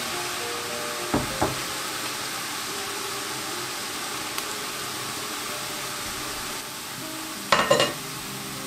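Boondi (gram-flour batter drops) frying in hot oil, a steady sizzle. Two sharp knocks come about a second in, and a quick run of metallic clinks near the end, as a utensil strikes the pan.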